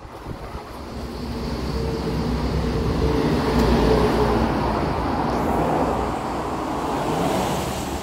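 Highway traffic passing below, with tyre noise on the rain-wet road. One vehicle swells up to its loudest about three to four seconds in, then fades away.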